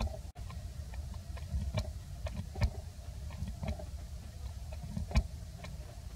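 Irregular sharp clicks and smacks over a steady low rumble, a macaque's mouth smacking as it picks through and eats from its infant's fur; the loudest click comes about five seconds in.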